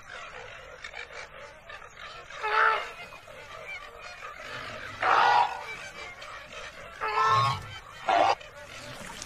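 Flamingos honking: three goose-like calls about two seconds apart, each lasting about half a second. A brief sharp sound follows near the end.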